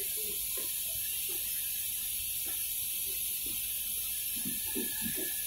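Steady high hiss at an even level, with a few faint short low sounds about four to five seconds in.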